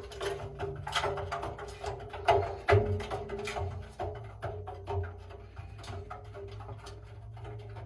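Music with percussion hits over a held tone and bass.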